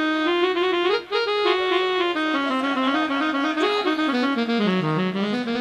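Instrumental music with a reedy lead melody playing a run of held notes that steps mostly downward in pitch, with a brief break about a second in.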